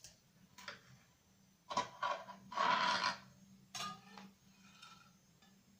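Kitchen knife cutting through a layered cake and knocking and scraping on a glass cutting board, loudest about two and a half to three seconds in. Near four seconds the metal knife is set down with a short ringing clink.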